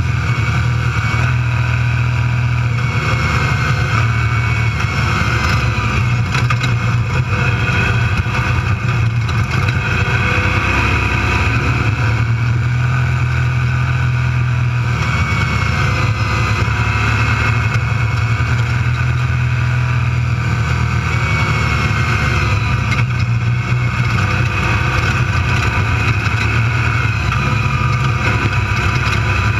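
A desert race car's engine runs steadily at speed, heard from inside the cockpit together with drivetrain and road noise.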